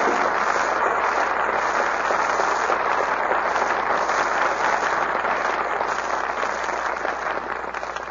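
Live studio audience applauding steadily, then fading out near the end.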